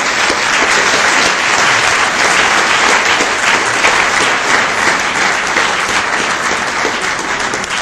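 Audience applauding: many people clapping together in a steady, dense patter that eases off slightly near the end.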